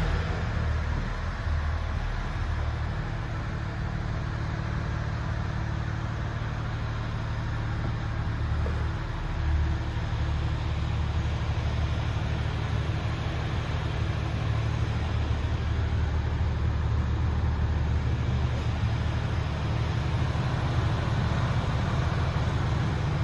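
MAN TGX 26.480's common-rail straight-six diesel idling steadily in neutral, heard from inside the cab as a low, even running sound.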